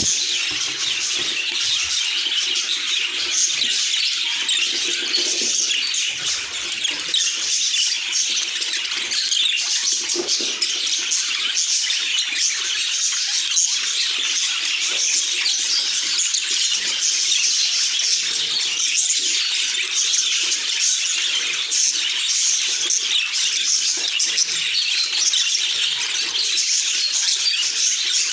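Budgerigars chattering and warbling, a dense, continuous twitter of many small chirps.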